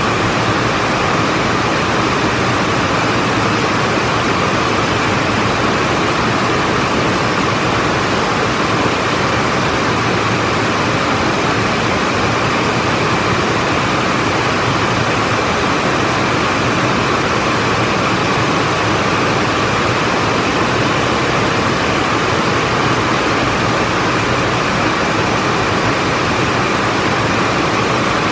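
Rows of SD8100 water jet looms weaving polyester fabric, many running at once in a weaving shed. They make a loud, steady, dense mechanical noise with no pauses.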